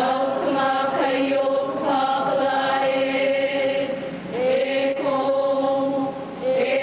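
Women chanting a Hawaiian oli without accompaniment, holding long notes on a near-steady pitch, with short upward slides at the start of new phrases about four and six seconds in.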